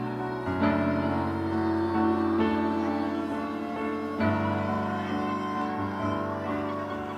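Slow, soft piano or keyboard music, sustained chords changing every second or two.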